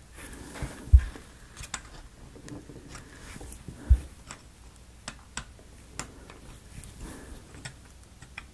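Light clicks and taps of thin wooden model-kit pieces being handled and pressed into their slots, with two dull thumps about a second in and just before four seconds as the pieces are pushed down onto the base.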